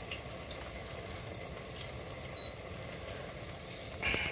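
Faint, steady sizzle of food frying in a pan, with a brief louder hiss near the end.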